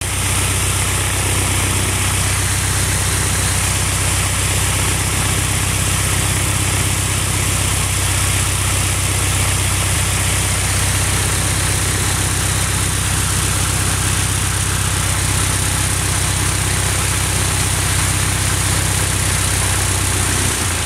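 A Piper Tomahawk's four-cylinder Lycoming engine and propeller running steadily at low taxi power as the light plane taxies close past. The loud drone holds one even pitch throughout.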